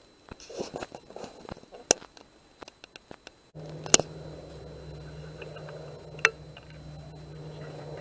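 Scattered small clicks and rustles, with one sharp click about two seconds in. About three and a half seconds in, a steady low hum starts and carries on, and two more sharp, loud clicks come about four and six seconds in.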